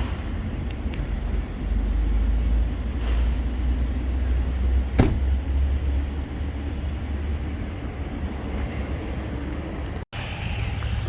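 Steady low rumble of passing road traffic, with one sharp click about halfway through.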